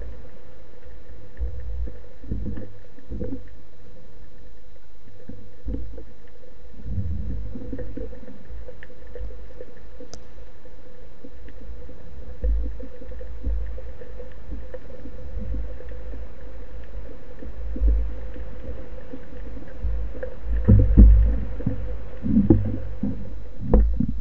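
Underwater sound picked up through an action camera's waterproof housing: a low, steady rumble of moving water. Louder sloshing and splashing come near the end as the freediver reaches the surface.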